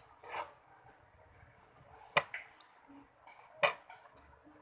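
A utensil scraping and clinking against a plate: a short scrape near the start, then two sharp clinks, about two seconds in and again a second and a half later.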